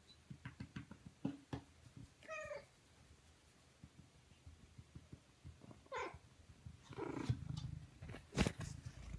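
Siamese cat giving two short meows a few seconds apart while being stroked, with soft rustling of the hand on its fur. A sharp thump near the end is the loudest sound.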